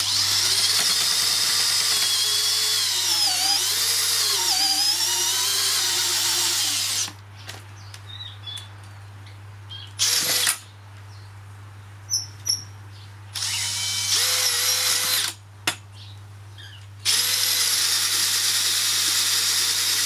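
Makita 40V cordless hammer drill (HP001G) driving a 100 mm earth auger bit into stony soil. It runs for about seven seconds, its motor whine sagging in pitch a few times as the auger bites, then gives a brief burst about ten seconds in and a two-second burst around fourteen seconds, and starts another steady run about seventeen seconds in.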